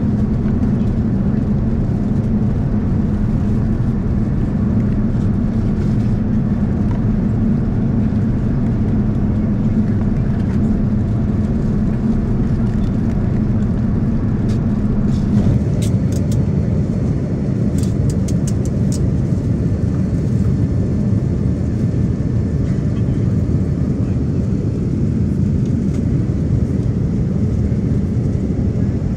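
Steady engine and airflow noise inside the cabin of a Boeing 787-9 airliner in flight. A low hum fades out about halfway through, and a few faint clicks follow.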